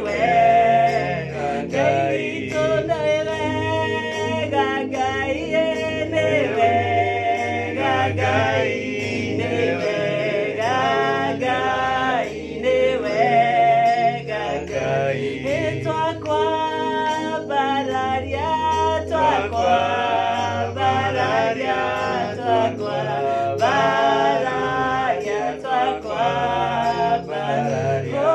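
Gospel worship song: voices singing a melody over a steady low musical accompaniment.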